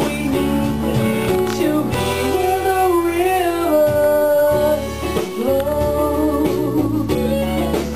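A woman singing a melody with long held notes, one wavering with vibrato about three seconds in, over a guitar-led accompaniment.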